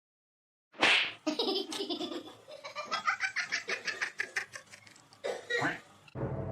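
Hearty laughter that breaks in suddenly about a second in and runs on as a rapid string of pulses, several a second, then trails off; music starts near the end.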